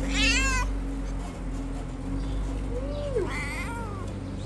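Cat meowing twice: one meow right at the start and another a little over three seconds in, with a shorter, lower call just before the second. A steady low hum runs underneath.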